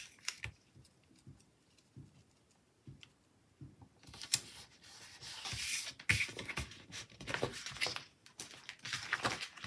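Paper and sticker sheets being handled: a few soft taps and clicks, then from about four seconds in a stretch of crisp rustling and scraping as the sheets are moved and slid across the desk.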